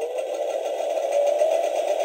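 Seasons animated skeleton sewing machine Halloween prop making its steady sewing-machine sound: a fast, even clatter over a slightly wavering hum.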